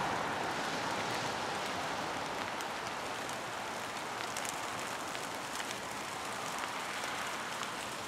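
Steady rain falling on the pine branches and leaf litter, with a few drops ticking now and then.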